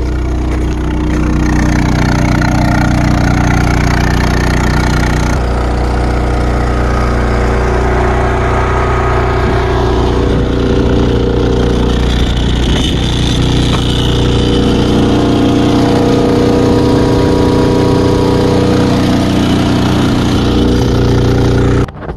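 Harbor Freight gasoline inverter generator running steadily under load; the engine sound cuts off suddenly near the end.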